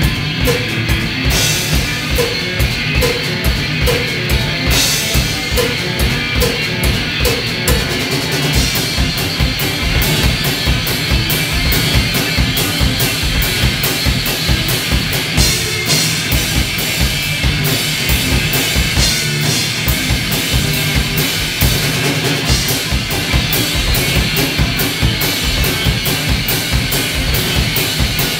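Live blues-rock duo playing an instrumental stretch without vocals: a full drum kit with bass drum, snare and cymbals keeping a steady driving beat, under amplified electric guitar.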